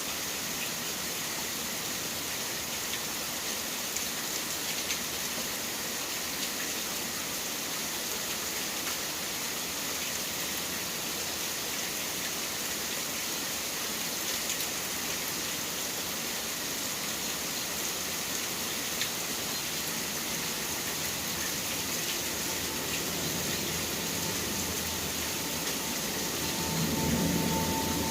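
Steady rain falling, an even hiss with scattered drop ticks. Near the end a vehicle's low rumble builds, joined by a steady whine.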